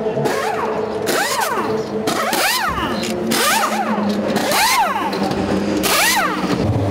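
Pneumatic wheel gun on a race-car pit stop spinning in five short bursts about a second apart, each a whine that rises and falls with a hiss of air, as a front wheel is changed.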